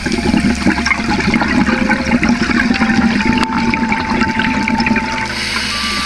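Underwater bubbling and gurgling of scuba divers' exhaled air, strongest in the first half. Soft background music of slow held notes runs underneath.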